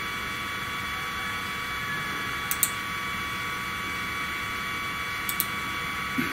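Steady whine and hiss from the 3018 CNC router's stepper motor drive as the Z axis jogs the tool slowly down toward the work at a 100 mm per minute feed. Two quick double clicks of a computer mouse come about two and a half seconds in and again about five seconds in.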